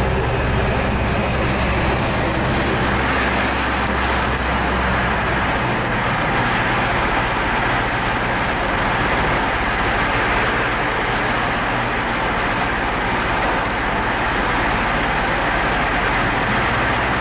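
A vehicle's engine running and its tyres rolling slowly over a dirt and gravel track, heard from inside the cab as a steady noise. A low engine hum is stronger for the first five or so seconds, then drops away.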